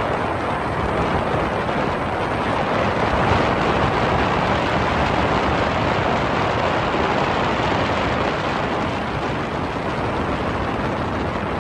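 Motorboat under way: a steady rush of engine, water and wind noise.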